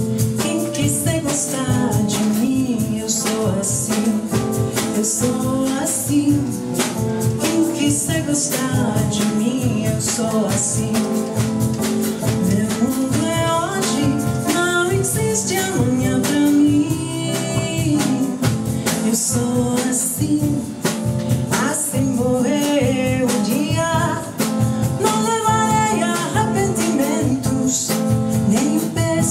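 Live samba: a woman singing in Portuguese over acoustic guitar and hand drum, with a steady beat.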